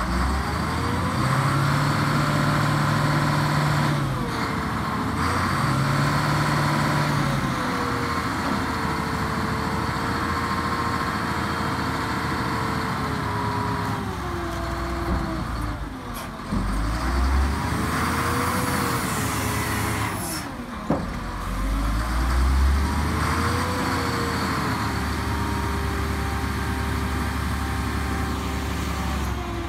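Diesel engine of a Komatsu HM300-2 articulated dump truck running, its pitch rising and falling several times as it is revved or driven. A brief sharp sound comes about two-thirds of the way through.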